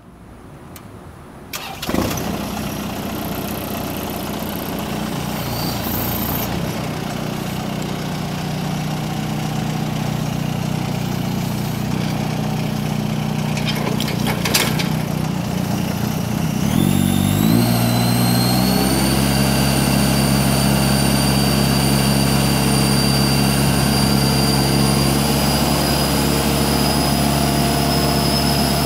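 Navigator 5500 truck-mounted forklift's engine starting about two seconds in, then idling steadily. Past the halfway mark the engine speeds up and a high hydraulic whine rises and holds as the mast lifts the forks.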